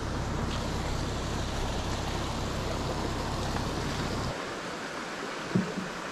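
Steady rushing of shallow creek water running over rocks in a riffle. A low rumble on the microphone lies under it and cuts off about four seconds in. A brief short sound comes near the end.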